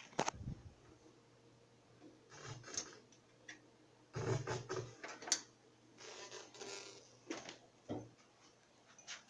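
Irregular bursts of scratchy, crackling noise a second or two apart, with a few sharp clicks and the biggest burst about four seconds in: the crackling that Discord running under Linux puts on the computer's audio.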